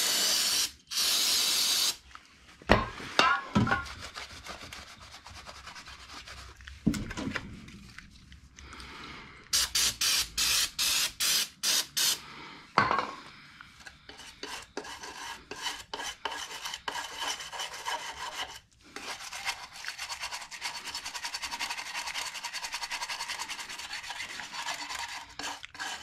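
Hand rubbing and scraping on a part at the bench. It opens with a short loud hiss, then comes a quick run of separate strokes about ten seconds in, and later a long stretch of fine, rapid scraping.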